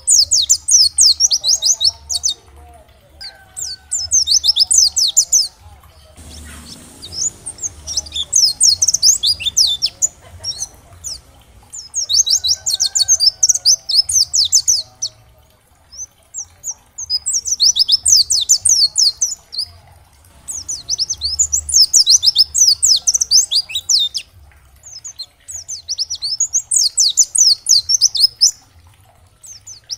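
White-eye (pleci dakbal) singing: rapid, high twittering phrases of two to three seconds each, repeated with short pauses between them.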